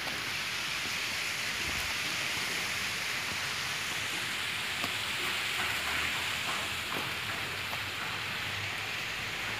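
A bright, steady hiss of outdoor background noise with a few faint clicks.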